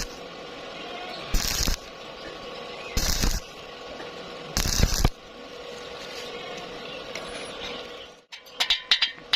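Arc welding in short bursts: three loud, crackling strikes of about half a second each, roughly a second and a half apart, over a steady hum. Rapid metallic clicking starts near the end.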